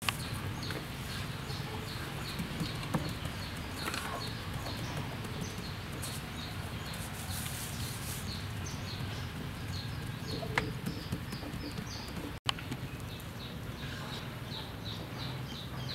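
A bird chirping over and over, short high chirps about three a second, with an occasional soft knock from hands working dough on a wooden board.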